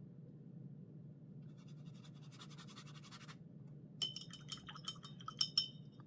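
A brush scrubs softly for about a second and a half. Then, about four seconds in, comes a quick run of sharp glassy clinks: a paintbrush being rinsed and rattled against a glass water jar.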